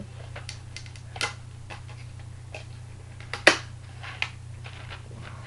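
Scattered clicks and knocks of model airliner parts being handled and fitted together, the loudest about three and a half seconds in, over a steady low hum.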